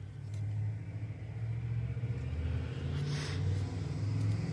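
A low, steady background rumble that grows slowly louder, with a brief rustle about three seconds in as a trading card is handled.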